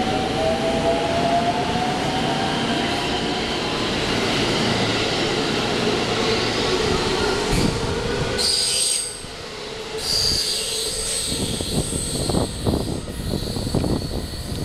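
JR West 223 series electric multiple unit moving along the platform, with motor whine faintly rising in pitch over dense wheel-on-rail noise. About nine seconds in, the train noise falls away, leaving high ringing tones and a run of irregular knocks and clatter.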